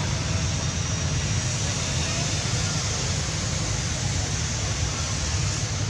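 Steady outdoor background noise with a heavy low rumble, and faint distant voices.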